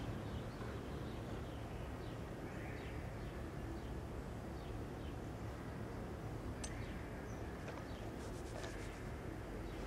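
Quiet background ambience: a steady low rumble with faint, scattered short chirps, and a couple of light clicks in the second half.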